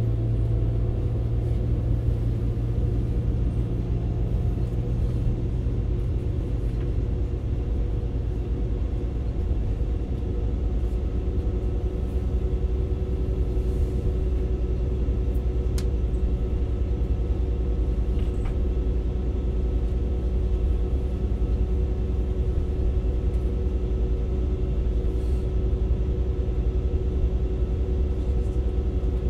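Inside a CAF Class 196 Civity diesel multiple unit under way: a steady, deep running rumble from the diesel engine and wheels on the track, with a low engine note easing off in the first couple of seconds.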